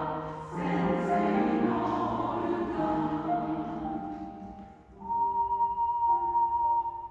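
Choir singing a sustained phrase with piano accompaniment; the voices fade out about four to five seconds in, and the piano carries on alone with held notes.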